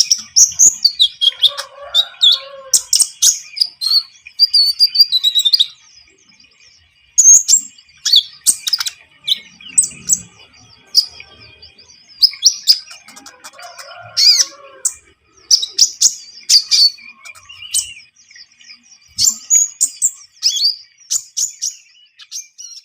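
A konin songbird singing busily ('gacor'): sharp high chirps and quick trills in dense runs, with a short lull about a quarter of the way through. A faint steady high tone sits underneath.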